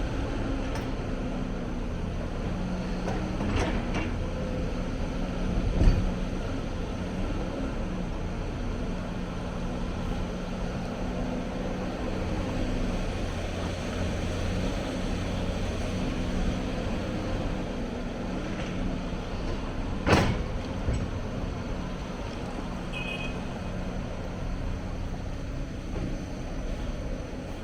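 Hyundai 290 excavator's diesel engine running steadily, with a heavy thump about six seconds in and a sharp clank about twenty seconds in.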